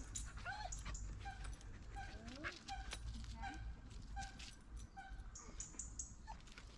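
A dog whining and whimpering in short, high, repeated squeaks.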